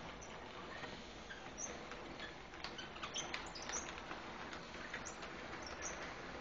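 Model train running on the layout: faint, irregular clicking of wheels on the track with short, high squeaks.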